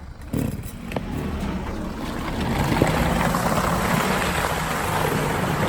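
Off-road vehicle engine running as it drives, with a rushing noise that swells about two seconds in and stays loud.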